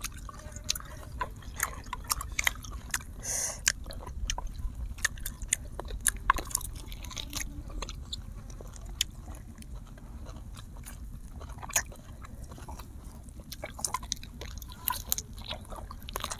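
Close-miked chewing and biting of grilled duck, with irregular wet clicks and smacks of mouths and meat. A short hissing rush comes about three seconds in.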